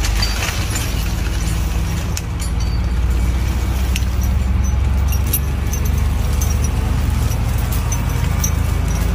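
Steady low engine rumble from the machinery lifting the load, with scattered light metallic clinks from the chain hoists hanging under a glass insulator string.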